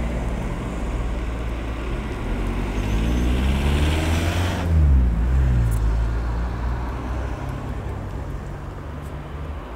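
Motor vehicle engine and road noise, building to a peak about five seconds in and then fading away.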